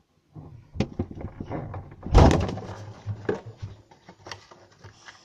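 A string of knocks and clatter, with one loud bang about two seconds in.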